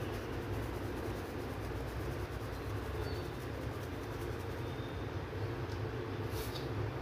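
Steady low droning background noise with a constant hum underneath, like a running machine; a brief faint high hiss about six seconds in.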